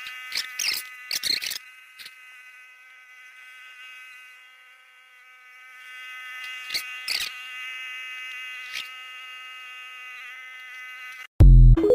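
Lawnmower running with a steady, high, buzzing whine, with a few sharp clicks near the start and around the middle. Just before the end the whine stops and a loud, deep thump takes over.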